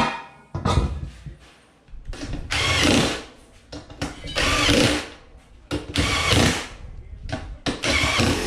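Cordless drill with a socket running the bolts on a dirt race car wheel's bead-lock ring, in four short runs of about a second each, its pitch rising and falling as it spins up and stops. A few sharp knocks come before the first run.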